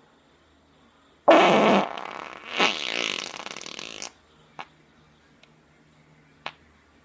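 A woman farting: one long, loud fart of about three seconds starting a second in, loudest at its start, with a second surge partway through and an abrupt end. Two short clicks follow.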